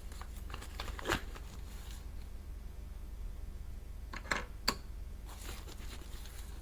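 Slime-making handling noises: a few short, sharp clicks and crackles, one about a second in and two close together past the four-second mark, over a steady low hum.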